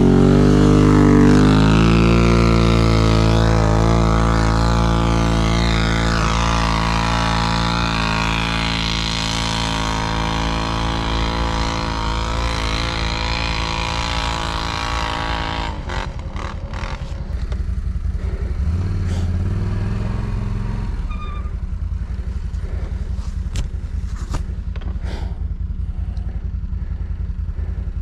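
Can-Am ATV's V-twin engine held at high revs for about sixteen seconds, then dropping to a low idle. A few sharp clicks or knocks come in the second half.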